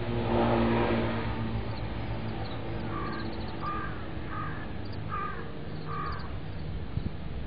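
A crow cawing five times in a row, roughly one call every three-quarters of a second. Near the start a passing car swells and fades away.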